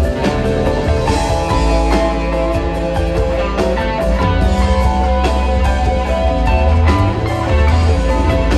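Rock band playing live, a guitar line over steady bass and sharp drum-like hits.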